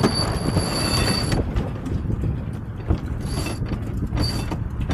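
Sailboat sheet winch ratcheting: a long run at first, then short bursts about once a second as the sheet is cranked in, over steady wind and water rush.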